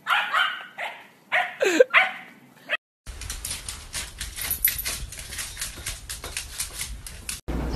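A dog barking in a quick run of short, loud barks, one of them sliding in pitch. After a sudden cut comes a quieter stretch of light, irregular clicks and rustles.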